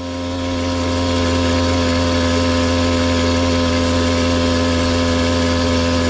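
Small motorized-bicycle engine running at a steady cruising speed while the bike rolls along the road, its pitch holding level; it swells up over the first second and then stays constant.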